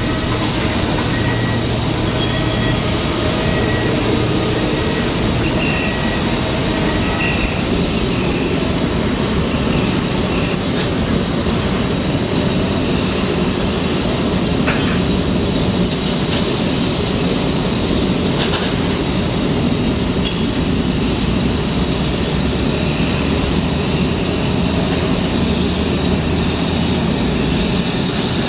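Boeing 747 jet engines running: a loud, steady roar, with faint whining tones over the first several seconds.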